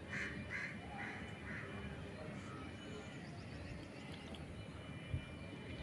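Four short animal calls in quick succession near the start, over faint background noise, then a single dull thump near the end.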